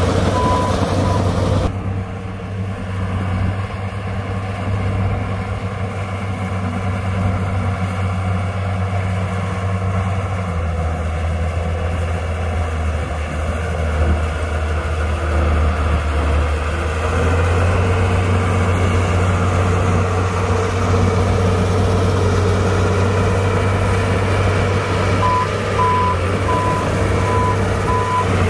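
Heavy diesel earthmoving machine running steadily, its engine note shifting a few times. A reversing alarm beeps in a regular run at the start and again for the last few seconds.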